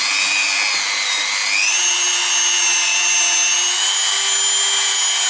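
Dremel rotary tool running, polishing the inside of a brake caliper's cylinder bore. A steady whine that rises in pitch about one and a half seconds in, then holds.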